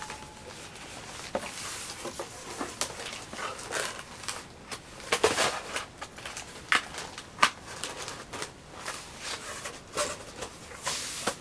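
Scattered, irregular clicks and crinkles of packaging being handled, such as snack wrappers and a cardboard box.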